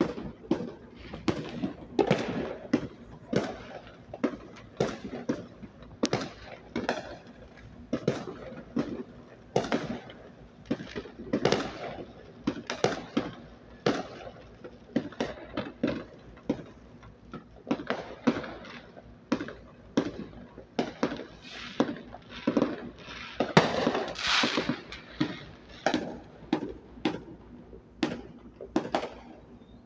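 Aerial fireworks going off: a steady run of sharp bangs and pops, about two a second, with a longer, louder crackling burst a little past two-thirds of the way in.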